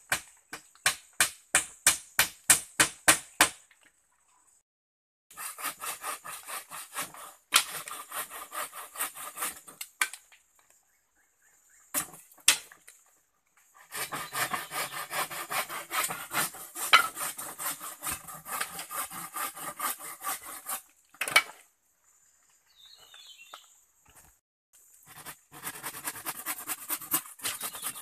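Hand saw cutting a wooden pole. It starts with a run of evenly spaced strokes, about four a second, then goes on in long bursts of quick rasping strokes with short pauses between.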